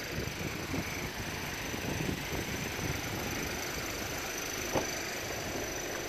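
Steady low rumble and hiss of outdoor background noise, with one short knock near the five-second mark.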